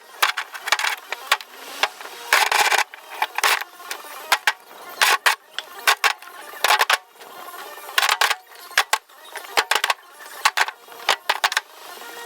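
Bricks clacking and knocking against each other in quick irregular runs as they are pulled loose from an old wall and stacked.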